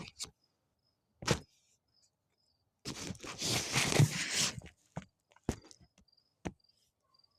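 Crickets chirping steadily in a quick, even pulse. A sharp click about a second in, and a loud crunching rustle of under two seconds near the middle, followed by a few more clicks.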